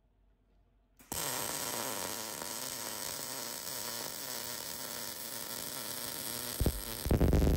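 A metal-fabrication shop tool starts abruptly about a second in and runs loud and steady with a harsh, hissing edge. It gets louder for its last second.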